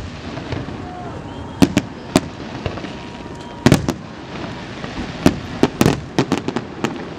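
Fireworks display: aerial shells bursting in sharp bangs, a few at a time with gaps between, then a quicker run of bangs over the last two seconds, over a steady background hiss.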